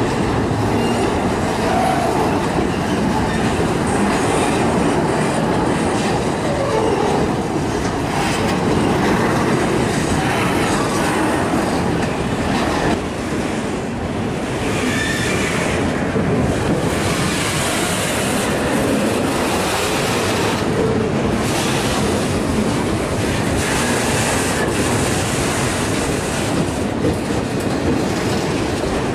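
Freight train of autorack cars rolling past close by: steady rumble of steel wheels on rail, with rhythmic clicking over the rail joints. In the second half, where the cars round a curve, high-pitched wheel squeal comes and goes.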